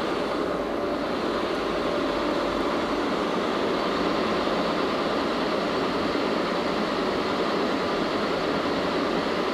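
1952 Bullard Cutmaster 36-inch vertical turret lathe running, its table and four-jaw chuck spinning while the side head power-feeds: a steady mechanical whir of the motor and gear drive with a faint constant tone.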